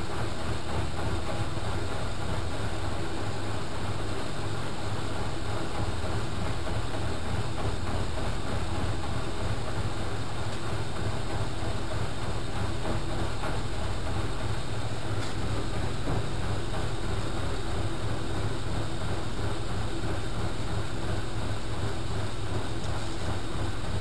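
Front-loading washing machine running a wash cycle: the drum turns through soapy water with a steady low motor hum and drum rumble.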